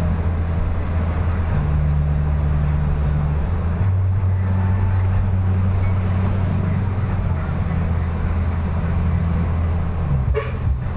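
Engine drone and road noise from inside a moving vehicle's cabin, likely a bus. A low engine hum holds steady, then shifts pitch a few times.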